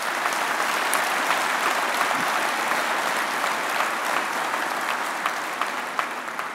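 A large audience applauding, many hands clapping together in a dense steady patter that begins to die down near the end.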